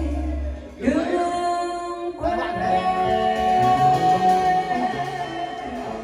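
Small live band playing, guitars and keyboard, with a singing voice holding long notes; the music fades down near the end.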